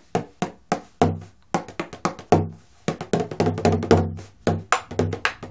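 Bodhrán beaten with a tipper in a steady rhythm of about four strokes a second, with a short break a little before the middle. The tipper is held upside down and driven from the fingers rather than the wrist.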